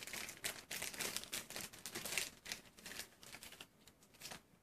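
Plastic bag wrapping a soldering iron crinkling and rustling as it is handled in the hands, a dense run of crackles that dies down near the end.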